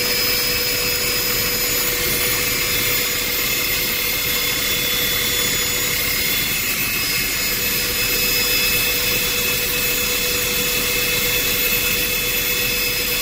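Helicopter cabin noise from the inside: the steady rush of the turbine and rotor with several steady high whines over it, running unchanged.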